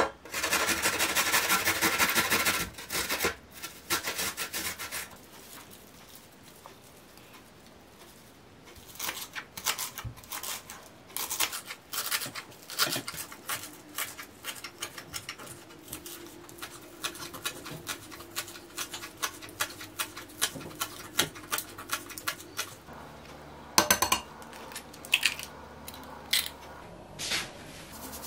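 Garlic cloves rubbed fast on a metal box grater, a loud rasping scrape for about three seconds at the start. Then a knife chopping fresh herbs on a wooden cutting board, a long run of sharp, uneven taps.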